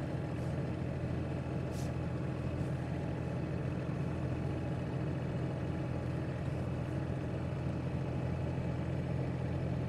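Steady engine and road noise of a vehicle being driven on a winter highway, heard from inside the cab: an even, unchanging drone with a low hum.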